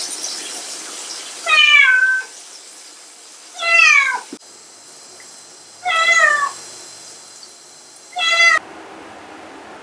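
Domestic cat meowing four times, about two seconds apart, each meow sliding down in pitch.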